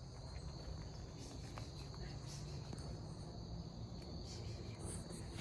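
Insects chirring in a steady high-pitched chorus, with a low rumble beneath.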